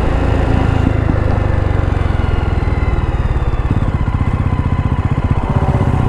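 Motorcycle engine running steadily while riding at road speed, with an even low pulsing from the exhaust.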